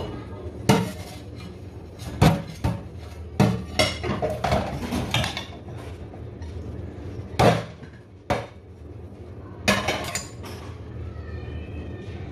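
Crockery and utensils clattering and clinking against each other and a steel sink as dishes are hand-washed, with a sponge scrubbing between the knocks. The clatters come irregularly, about ten in all, over a steady low hum.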